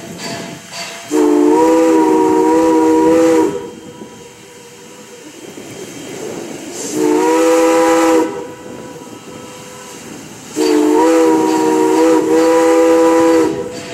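Steam whistle of Canadian National 2-6-0 steam locomotive #89, sounding several notes together in three blasts: a long one, a shorter one about seven seconds in, then another long one near the end. A quieter rushing hiss of the working locomotive fills the gaps between blasts.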